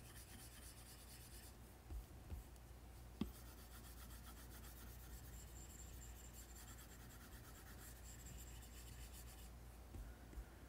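Faint scratching of an Apple Pencil tip drawing on an iPad screen fitted with a matte screen protector, with one light tap about three seconds in.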